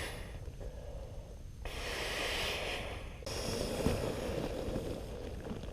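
A man blowing long breaths into the valve of a Therm-a-Rest NeoAir air mattress to inflate it by mouth, one rushing exhale after another.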